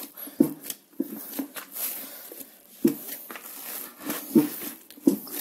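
Hands kneading a stiff cookie dough in a bowl, giving irregular dull thumps and soft squishes as the dough is pressed and folded; the dough is at the smooth, no-longer-sticky stage just before shaping.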